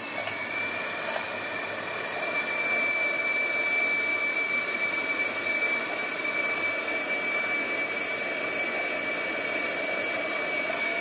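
Hand-held, hose-fed gas brazing torch burning steadily, a continuous hiss of the flame with a thin high whistle in it, as a copper refrigerant line is brazed.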